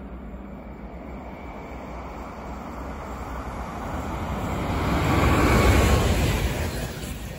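Electric-hauled RegioJet passenger train passing at speed: a rumble that grows as the locomotive approaches, is loudest as it goes by about five to six seconds in, then eases into the rolling of the coaches.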